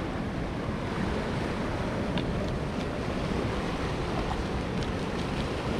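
Steady noise of wind and sea surf on a rocky shore, with wind rumbling on the microphone. A few faint clicks sound about two seconds in and near the end.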